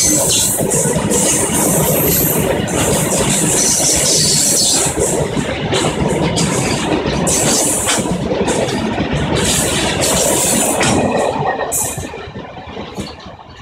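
Goods train of covered wagons rolling past close by: a loud, steady rumble of wheels on the rails with irregular sharp clanks and clatters. The noise drops away quickly near the end as the brake van at the tail passes.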